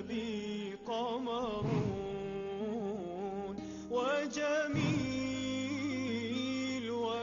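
Intro song in the style of an Arabic religious song: a voice sings a wavering, ornamented melody over steady instrumental backing, with a drum-like hit about every three seconds.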